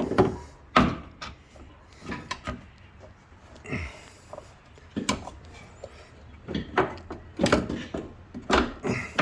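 Irregular knocks and clunks, about ten of them, as a strut assembly is manoeuvred up into the car's wheel well and seated against its mounts.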